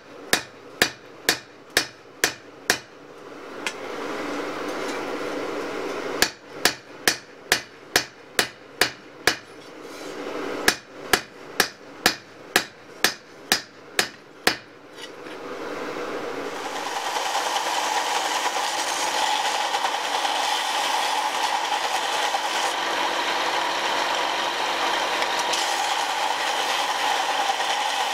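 Hand hammer striking hot leaf-spring steel on an anvil in three runs of quick blows, about two or three a second, with short pauses between. In the second half the hammering stops and the steady whir of an electric grinder takes over, with a constant hum.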